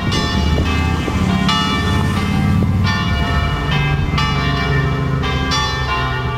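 Loud church bells playing a tune, with a new note struck about every second and each note ringing on into the next.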